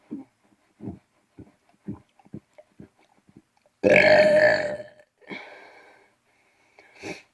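A person burping on purpose: one loud, long burp about four seconds in that tails off, after a run of short, faint low sounds about every half second.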